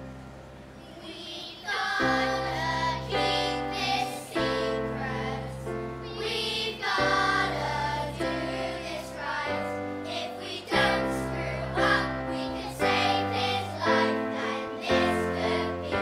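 Children's choir singing in unison over a backing track with a steady bass line; after a soft intro, the voices come in about two seconds in.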